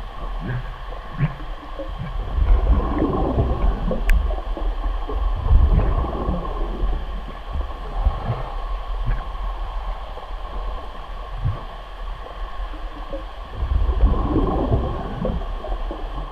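Humpback whale calling: a run of short, low calls over a steady hum, swelling louder a few seconds in and again near the end, with one sharp click about four seconds in.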